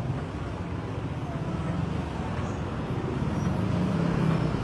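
Steady low rumble of a motor vehicle engine and road traffic, growing somewhat louder over the last couple of seconds.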